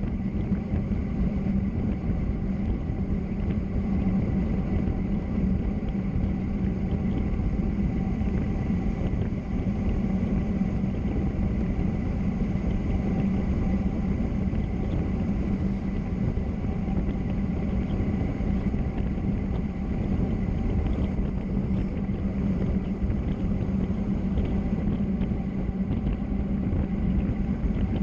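Steady rush of wind and road noise from travelling downhill at speed, with a constant low hum and a faint high whine.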